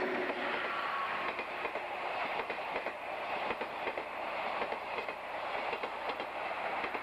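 Passenger coaches of the Euroliner rolling past close by, their wheels clicking over rail joints in an irregular clatter over a steady rumble of running gear. A faint whine fades out in the first half-second.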